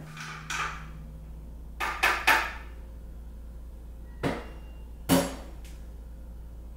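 Short knocks and clinks of dishes and kitchen items being handled at a kitchen sink, about six in all, the loudest a quick pair about two seconds in and one about five seconds in, over a low steady hum.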